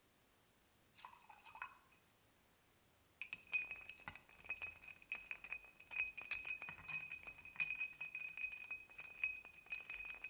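Ice cubes clinking rapidly against a cut-glass mixing glass as a bar spoon stirs them, the glass ringing with a steady high tone. The stirring starts about three seconds in; before it, a short soft splash about a second in.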